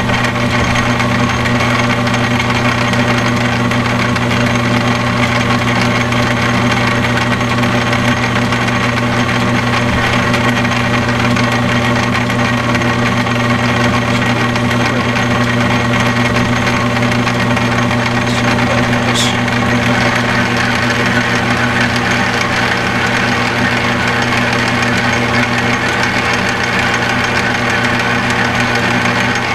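Metal lathe running steadily with a constant motor hum, turning a steel part down by a few thousandths of an inch; a brief high squeak about two-thirds of the way through.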